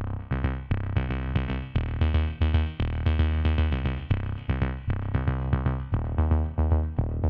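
Electronic music: short, evenly paced synthesizer notes, about three a second, over a deep bass.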